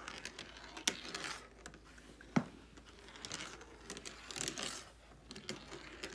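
A glass marble rolling along a plastic marble run's tracks: a running rattle of rolling with sharp clicks as it knocks along the pieces. There are two clear clicks in the first half, then swells of rolling later.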